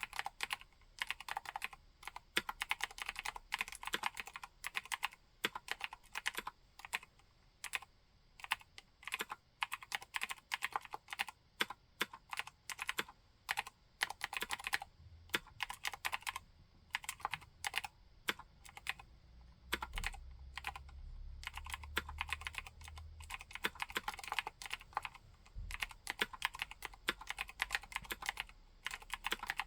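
Fast typing on a Vortex M0110 60% mechanical keyboard with clicky Cherry MX White switches and thick MT3-profile keycaps: dense runs of key clacks in bursts, thinning out briefly twice. A faint low rumble sits under the typing in the middle.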